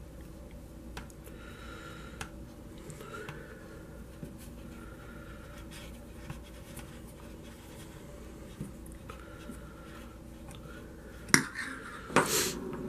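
Hex driver backing a small screw out of the plastic rear carrier of a Traxxas Slash RC truck, with faint scratchy squeaks every second or two and small clicks. Near the end there is a sharp click and a louder clatter as the driver is put down.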